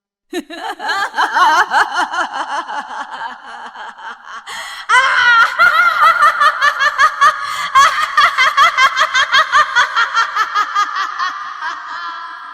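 A woman's evil laugh: a cackle of rapid, high-pitched "ha" pulses. The first laugh trails off, then a second, louder one starts about five seconds in and slowly fades away.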